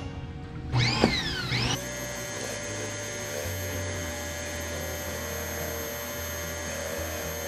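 Electric pressure washer running steadily with a surface cleaner, a constant motor hum and whine. About a second in, a short swooping sound rises and falls in pitch.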